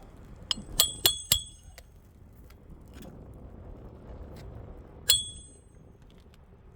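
Roofing hatchet striking nails to fasten a shingle: a quick run of four sharp metallic strikes with a short ringing ping, then one more single ringing strike near the end.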